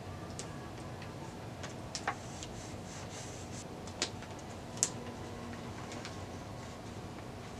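A few small, sharp clicks and taps from handling a fingerboard while a sticker is put on it, over low steady room noise; the loudest click comes just before the five-second mark.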